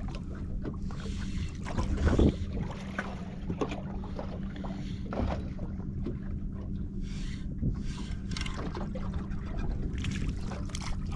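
Sounds of fishing from a boat as a fish is wound up from the bottom: small clicks and knocks of gear handling over a steady low hum, with a louder knock about two seconds in.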